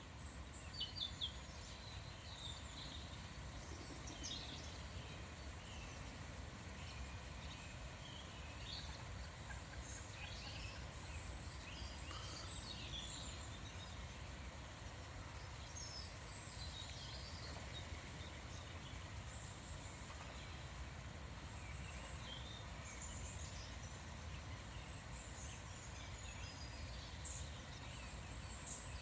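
Small wild birds singing and calling: scattered short chirps and trills throughout, over a steady low background rumble.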